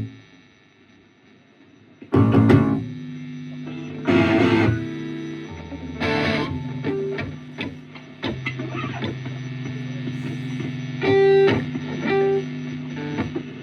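Electric guitar through an amplifier strumming single loud chords about every two seconds, with held low notes and scattered picked notes between them.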